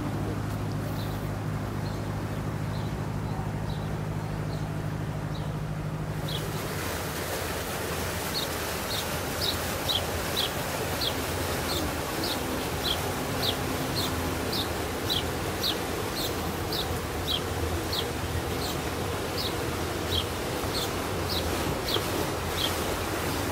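Motorboats passing on a river: a steady low engine hum, then, after about six and a half seconds, a broader wash of engine and water noise as a sport cruiser and a small speedboat go by. A small bird calls a short high chirp about twice a second.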